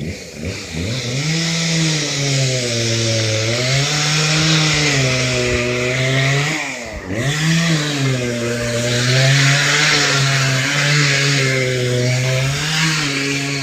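Chainsaw running at high revs while cutting into a storm-fallen tree. Its engine note sags under load about three and a half seconds in, drops sharply about seven seconds in, then picks back up.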